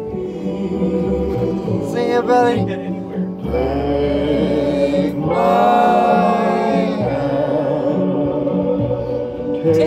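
Singing with musical accompaniment.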